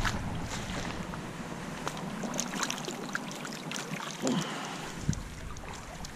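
Shallow water splashing and sloshing as a hand dips a fish into it and lifts it out, with wind on the microphone and a few small clicks. A couple of louder splashes or knocks come about four and five seconds in.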